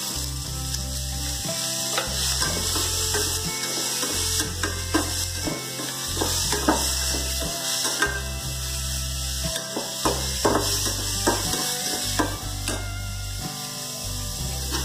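Chopped onions sizzling in hot oil in a steel kadai. A metal spoon scrapes and clinks against the pan again and again as they are stirred.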